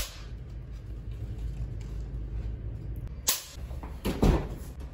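A clapperboard snaps shut right at the start, then a quiet room hum. About three seconds in, a short click, and a second later a heavier thud as an office door is handled.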